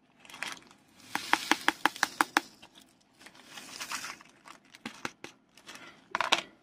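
Crinkling of plastic as a bag and tray of square resin diamond-painting drills are handled, with a quick run of about ten light clicks a second or so in and another short rustle near the end.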